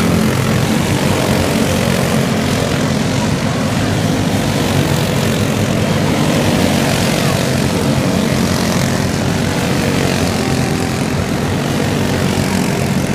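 Several racing go-kart engines running together as the karts lap a dirt oval: a loud, steady drone of overlapping engine notes.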